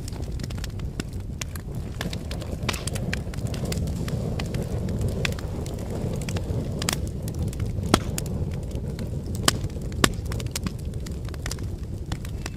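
Wood campfire crackling, with irregular sharp pops over a steady low rush. The loudest pops come about eight and ten seconds in.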